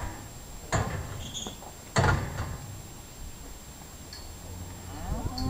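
Two loud knocks about a second and a quarter apart as steers in a steel yard pen bump against the rails, with quieter shuffling between.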